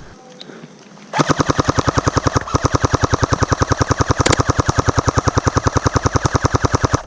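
Airsoft gun firing on full auto, a long continuous burst of rapid shots at about ten a second, starting about a second in.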